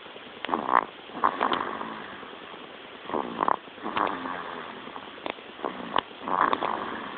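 Baby snoring: about six short, noisy breaths at irregular intervals.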